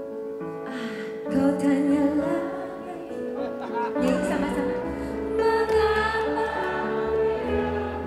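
A woman singing a song into a microphone with live band accompaniment. A low bass line comes in about halfway through and fills out the music.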